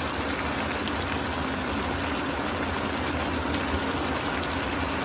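Sliced mushrooms and vegetables sizzling steadily in a hot wok, over a steady low hum.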